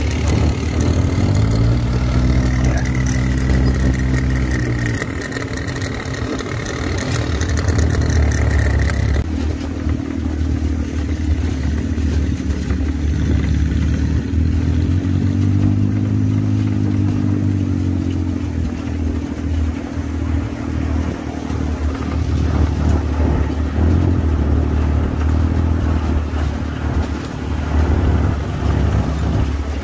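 Off-road desert buggy's engine running while driving over sand, its pitch rising and falling as it speeds up and eases off, clearly twice.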